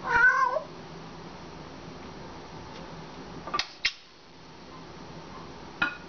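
African grey parrot giving a short, loud, wavering call at the start, about half a second long. Sharp clicks follow twice about three and a half seconds in and once more near the end.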